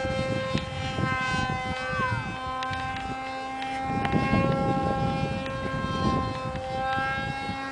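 Homemade foam RC airplane's motor and propeller running in flight, a steady whine of several evenly spaced tones. Wind buffets the microphone with a low rumble, strongest about four to six seconds in.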